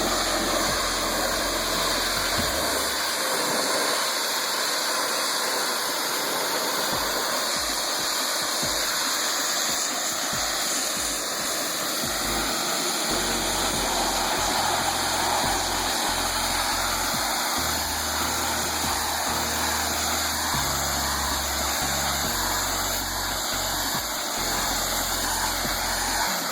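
Husky H2000 pressure washer spraying a high-pressure fan stream of water against a vinyl fence: a steady, loud hiss of spray over the running pump.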